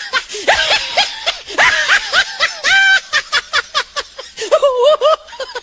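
High-pitched snickering laughter in quick, choppy bursts, with a rapid run of short 'heh-heh' beats partway through.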